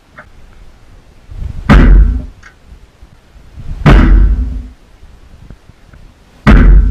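A sheep butting the steel bucket of an excavator: three heavy thuds about two seconds apart, each ringing briefly.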